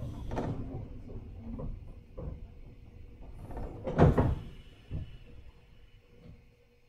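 Cabin of a 103 series 1500 electric train standing at a station: a steady hum from the car's equipment, with irregular knocks and thumps, the loudest about four seconds in.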